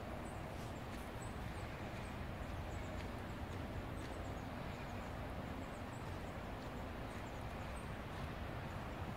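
Steady outdoor background noise with a low rumble, and faint short high chirps scattered throughout.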